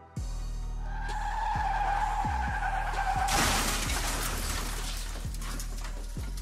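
Car tyres skidding under hard braking, a high steady screech for about two seconds, then a crash with shattering glass that fades slowly. Music with a deep bass drone and heavy drum hits plays underneath.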